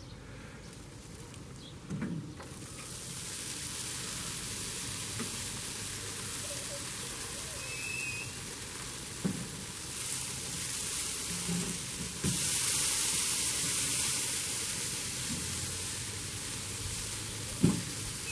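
T-bone steaks sizzling on a hot grill grate as they are turned. The sizzle starts a couple of seconds in and gets louder in steps about ten and twelve seconds in. A few light knocks come from the steaks and meat fork on the grate.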